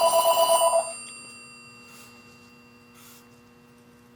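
Electronic telephone ringing with a fast warbling two-tone trill. The ring stops about a second in, leaving a pause between rings.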